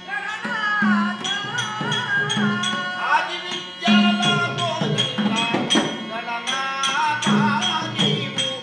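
Folk music accompanying a shadow-puppet play: a voice sings a bending, wavering melody over a run of sharp percussion strikes.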